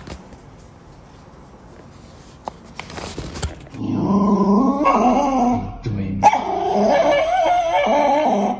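A small dog whining in long, wavering vocalizations that rise and fall in pitch. It starts about four seconds in and comes in two long stretches with a short break between them.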